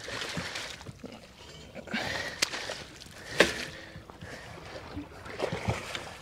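Scattered knocks and water sloshing in a small aluminium tinny while a snapper is being landed, the loudest knock about halfway through.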